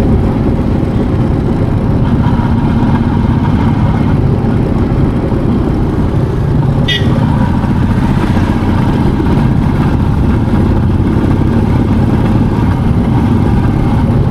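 Motorcycle engine running steadily while riding uphill, with a dense low rumble of wind on the microphone. A brief high chirp sounds about seven seconds in.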